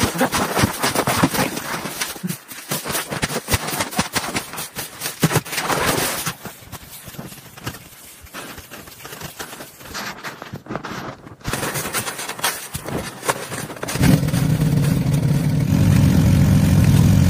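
Irregular knocking and scraping, then about fourteen seconds in an engine starts up and runs steadily with a low, fast pulse.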